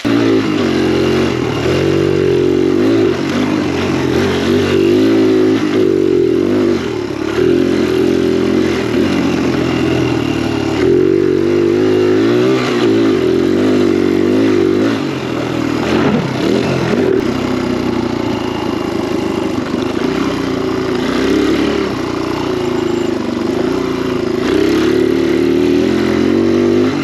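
Kawasaki KLX dirt bike's single-cylinder four-stroke engine running while being ridden, its revs rising and falling.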